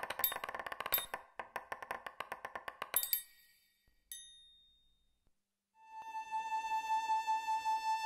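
Rapid metallic clicking and chiming as the animated alarm-clock bells gather, ending in a ringing metallic clang about three seconds in and a single high ding a second later that fades out. After a short silence, a held violin note begins.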